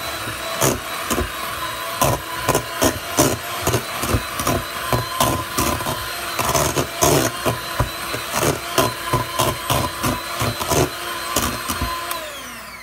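Electric hand mixer running on low, its beaters mashing boiled sweet potatoes in a stainless steel bowl, with frequent irregular knocks of the beaters against the bowl. The motor winds down near the end.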